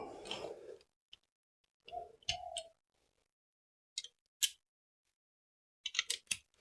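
Scattered metallic clicks and taps of a ratchet wrench being set on and worked against motorcycle engine mount bolts, ending in a quick run of ratchet clicks.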